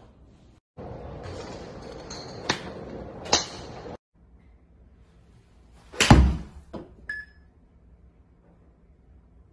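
Golf iron shots: two sharp cracks of club on ball over driving-range background noise, then a louder, deeper strike in the simulator room as the ball hits the screen, followed by two smaller knocks, one with a short ring.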